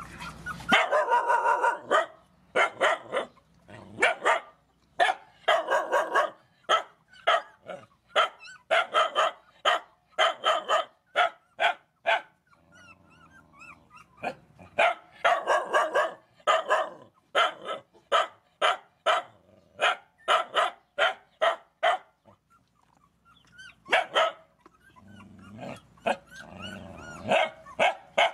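A dog barking repeatedly in quick runs of short barks, with two brief pauses in which fainter high whines are heard.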